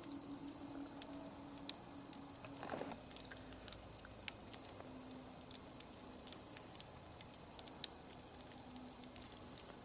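Wood campfire crackling with scattered sharp pops, a brief flurry of crackling about three seconds in, over a steady high trill of crickets.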